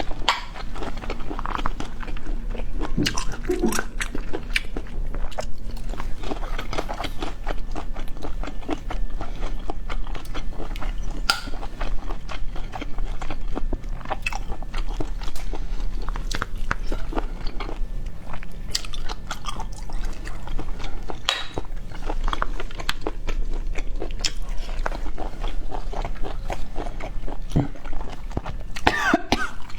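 Close-miked eating of boiled snails in spicy sauce: continual wet chewing, slurping and smacking, with many small clicks and crunches.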